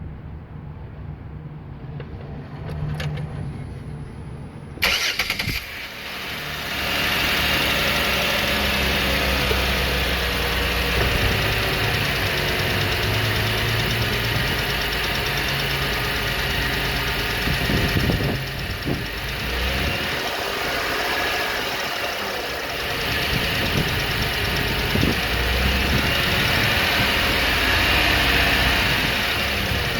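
Car engine, quiet until a sudden jump in sound about five seconds in, then running steadily. The ticking in it is what the owner asks about: a lifter tick, or something worse.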